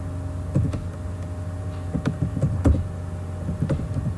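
Computer keyboard keys clicking as a word is typed: irregular keystrokes, a couple near the start and a quicker run in the middle, over a steady low hum.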